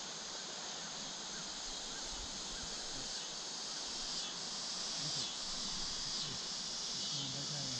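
Steady, high-pitched chorus of insects such as crickets, running evenly throughout.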